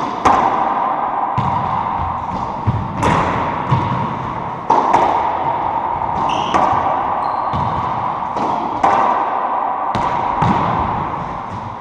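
Racquetball rally in an enclosed court: about a dozen sharp smacks of the ball off the rackets and walls, each ringing on in the court's echo. A brief sneaker squeak on the hardwood floor about six seconds in.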